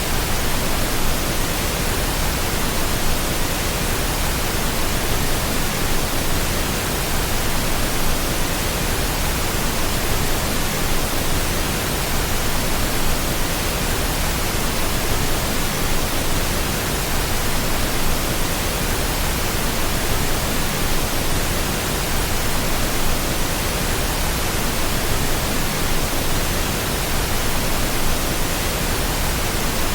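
Steady pink noise: an even, unbroken hiss with no changes in level or pitch.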